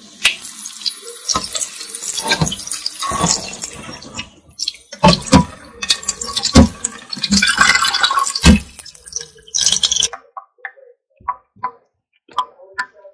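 Tap water running into a stainless steel sink while raw beef cubes are rinsed by hand in a metal pot, with knocks and clatters of the pot. About ten seconds in the water stops, leaving scattered small taps and drips as raw shrimp are handled in the sink.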